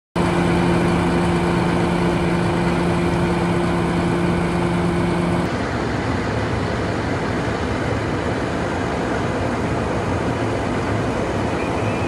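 Fire truck's diesel engine running steadily at the fire scene, a constant hum over a rushing noise. About five and a half seconds in, the sound cuts abruptly to a rushing noise without the hum.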